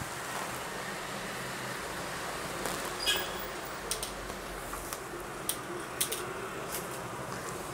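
Felt-tip marker working on paper: a few light clicks and taps over a steady background hiss.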